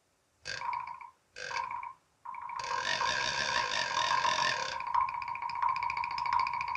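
Cartoon machine sound effect for a mechanical robot arm: a buzzing electric tone in two short blasts, then one long steady buzz.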